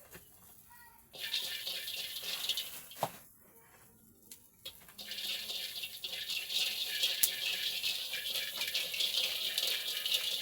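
Cooking over a firewood fire: a dense crackling hiss starts about a second in, falls away briefly around three seconds, and comes back steadily from about five seconds on.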